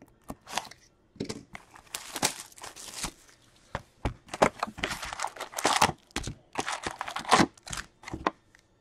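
Wrapping of a hobby box of hockey cards and its foil packs being torn open and crinkled by hand, in uneven rustling spurts with a few small clicks.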